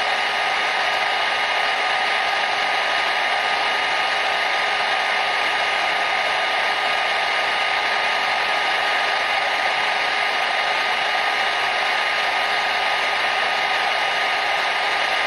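Hair dryer running steadily: an even, unbroken rush of air with a faint constant whine in it.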